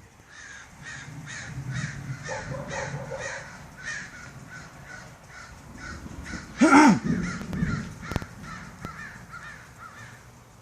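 Birds calling over and over, short harsh calls about three a second. About two-thirds of the way in, one much louder, short call with a rising-then-falling pitch cuts across them.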